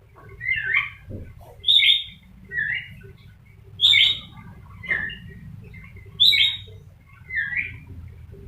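Rainbow lorikeet mimicking a hen's cackle: a run of about seven short clucking calls, roughly one a second.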